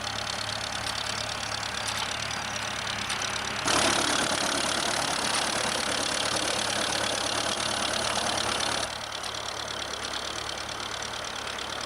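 Ferguson TEF tractor's four-cylinder diesel engine running steadily, with a louder stretch from about 4 to 9 seconds in.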